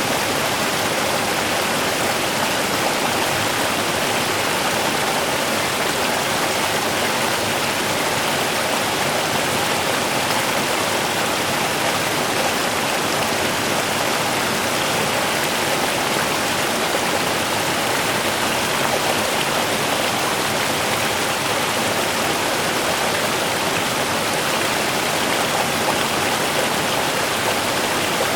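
Small river running steadily, an even rush of water.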